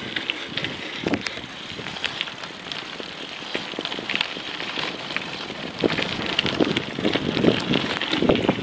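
Mountain bike tyres rolling fast over a gravel trail, a steady crunch with a constant crackle of small stones and rattling from the bike. It gets rougher and louder about six seconds in.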